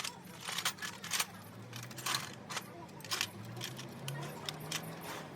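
Irregular metallic clinks and taps, about two or three a second, like hand tools and metal parts knocking together during machinery repair, over a low hum.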